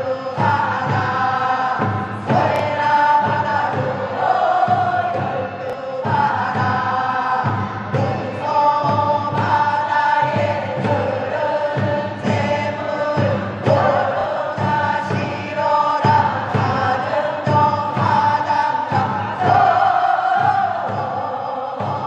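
Chorus of men and women singing a Korean fishermen's work song from the North Pyeongan west coast, in repeated phrases of about two seconds, over steady beats of a barrel drum (buk).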